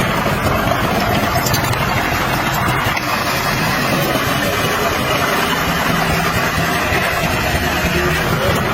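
Heavy dump truck's diesel engine running steadily.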